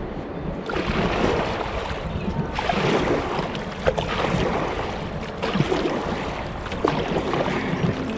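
Sea water splashing and lapping around a kayak, with wind blowing on the microphone and a few irregular light knocks.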